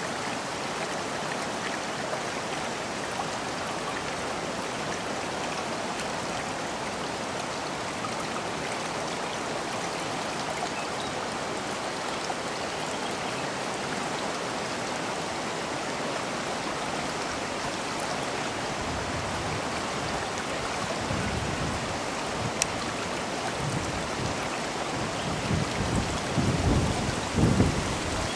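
Steady hiss of rain and rushing floodwater from a swollen stream. In the last several seconds, low uneven rumbling gusts join in and grow louder.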